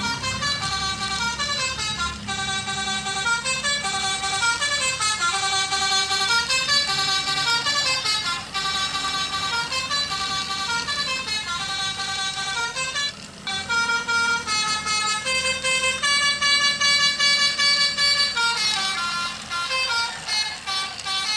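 Telolet basuri horn playing a melody: a run of horn notes stepping up and down, several pitches sounding together.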